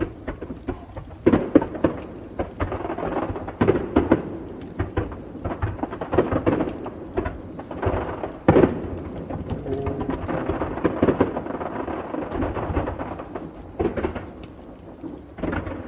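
Aerial fireworks bursting again and again: deep booms with dense crackling between them. The sharpest bang comes about eight and a half seconds in.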